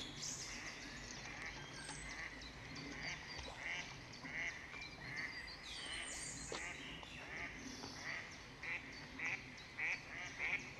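Ducks quacking: a run of short calls, about two a second, growing louder and more regular in the second half.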